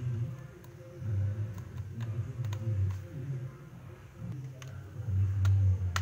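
A few sharp small clicks of a screwdriver and screws on a laptop's plastic bottom case, over a low wavering hum.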